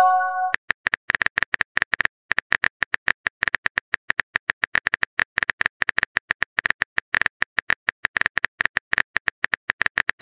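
Keyboard typing sound effect: a steady run of quick, irregular clicks, several a second, as the next chat message is typed. It opens with a short chime, the sound of a message being posted.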